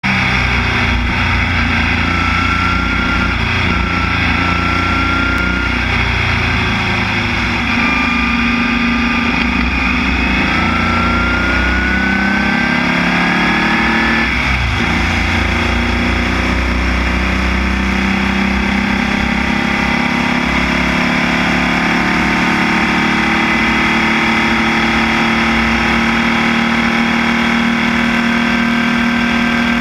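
Formula Vee race car's air-cooled Volkswagen flat-four engine at racing speed, heard on board. It runs loud and steady at high revs, its pitch slowly climbing, with a brief drop and recovery about halfway through.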